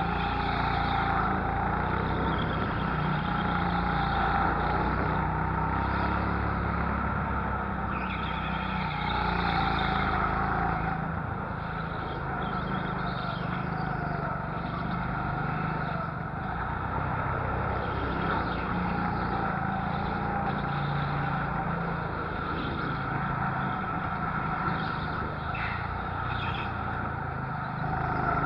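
Go-kart engine running flat out through a lap, its pitch rising and falling as the kart accelerates along the straights and lifts for the corners.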